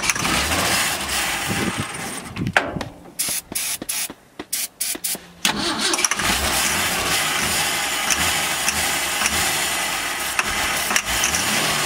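Old pickup truck's engine being cranked over by the starter in several attempts with short breaks between them, while starting fluid is sprayed into the intake to get it to fire.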